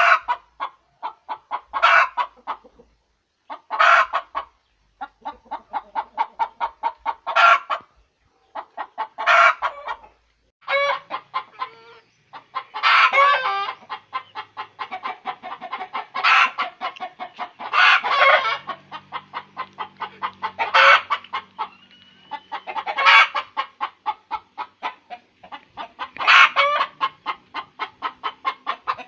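Hen's egg-laying cackle: runs of rapid clucks, each rising to a loud drawn-out squawk, repeating about every two seconds. The calling grows denser about halfway through.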